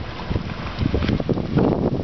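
Wind buffeting the microphone, heavier from about a second in, over the low running of a cabin cruiser's 5.7 L V8 Bravo sterndrive engine as the boat moves slowly past at low speed.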